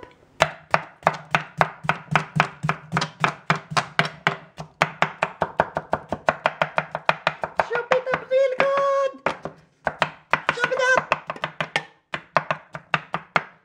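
Kitchen knife chopping cucumber on a wooden butcher-block cutting board: quick, even chops at about four or five a second, with a couple of short pauses near the end.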